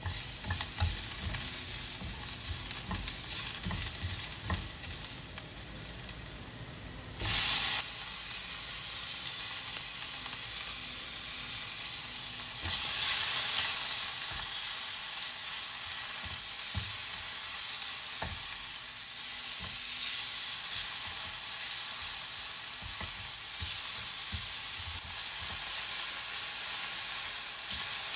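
Minced garlic, then sliced pork and chillies, sizzling in hot oil in a nonstick wok while a silicone spatula stirs and taps against the pan. About seven seconds in there is a sudden louder burst of sizzling as the pork goes into the hot oil, then a steady frying hiss.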